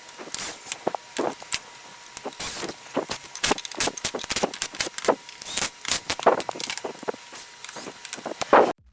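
Irregular metallic clicks, taps and clinks of small metal parts, screws and hand tools being handled during assembly, with a faint steady tone underneath. The sound cuts off suddenly just before the end.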